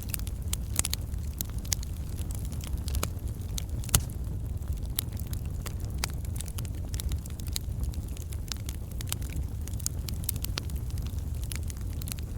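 Wood fire of burning logs crackling, with many irregular sharp pops and snaps over a steady low rumble of the flames; the loudest pop is about four seconds in.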